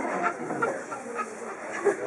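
Indistinct background chatter of several voices in a room, with no one voice standing out.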